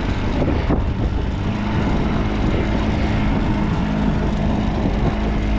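Boat engine running at a steady pitch over a broad rushing noise.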